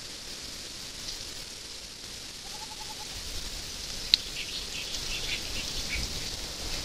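Outdoor ambience: a steady high hiss, a faint short bird call of a few quick notes about two and a half seconds in, and one sharp click about four seconds in.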